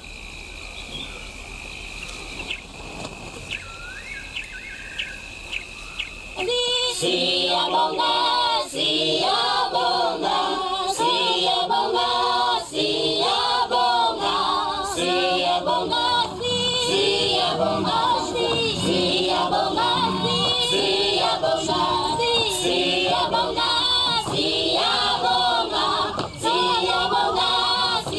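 Quiet bush ambience with a steady high insect drone and a few bird chirps, then about six and a half seconds in a choir of voices starts singing in short repeated phrases and carries on loudly.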